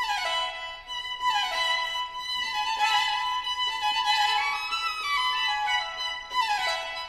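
Instrumental background music: a pitched melody of quick falling runs of notes, repeating about once a second, with one rising run in the middle.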